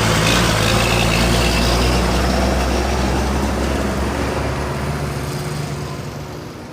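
A heavy truck's diesel engine running with road noise, fading away over the last couple of seconds.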